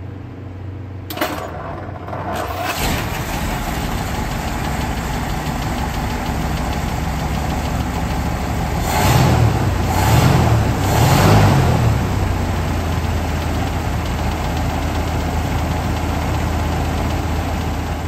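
1938 Packard V12 engine being started: a click, a second or so of cranking, then it catches and settles into a steady idle. Around the middle it is briefly revved three times, each rev rising and falling in pitch, before it drops back to idle.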